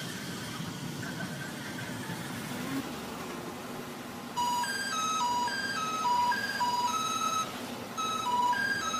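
Steady street and train running noise, then about four and a half seconds in a train's musical horn starts playing a repeating arpeggio of three high notes, each note short and clear. The horn is that of a red Meitetsu Panorama Super express.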